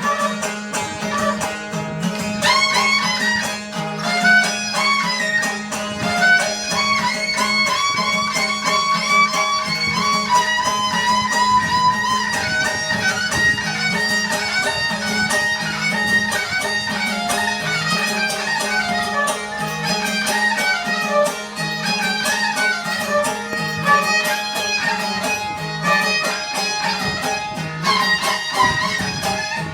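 Background music: a bowed string instrument plays a winding, ornamented melody over a steady low drone.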